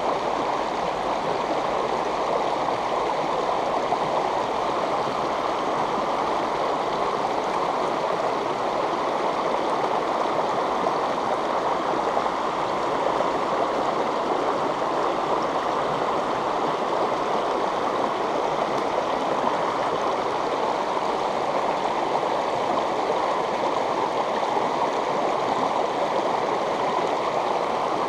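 Steady rushing of river water pouring and splashing over a low rocky step right below the microphone.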